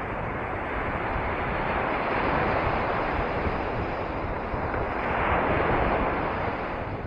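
Sea waves washing onto the shore: a steady rush of surf that swells twice, about two seconds in and again about five seconds in.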